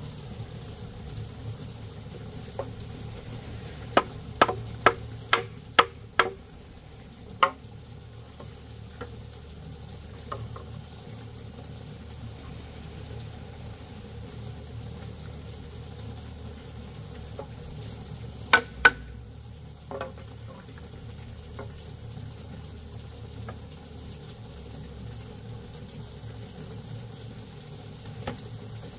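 Food frying in a pan, with a utensil stirring and striking the pan: a run of about seven sharp clinks about four seconds in, and a couple more past the middle.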